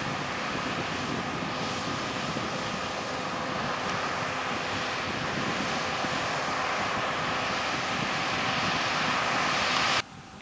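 Heavy harvest machinery running steadily, an even engine rumble and rush with a faint steady whine. It swells slightly and then cuts off abruptly near the end.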